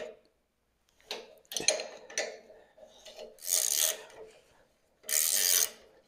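Wrench turning a nut on half-inch threaded rod to tension a sawmill feed chain: a few metal clicks, then two rasping strokes of the wrench on the nut, each about half a second long and roughly two seconds apart.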